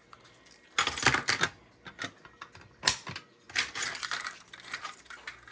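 Rattling and clicking of small hard objects being handled: two bursts of clatter about three seconds apart, with a single sharp click between them and a few lighter clicks near the end.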